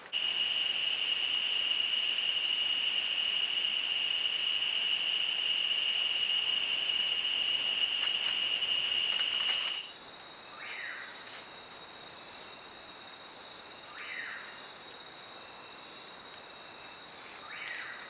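Night insects of the tropical rainforest: a steady high-pitched trill that gives way about ten seconds in to a higher, buzzier insect chorus. Over the chorus come three short falling calls from another animal, a few seconds apart.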